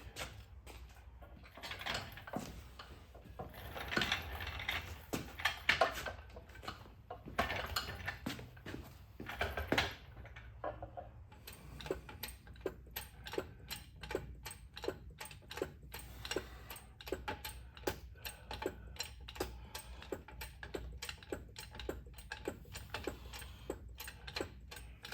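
Clicks and taps of hand tools on metal, scattered at first and then coming in a quicker, fairly even run from about halfway, over a steady low hum.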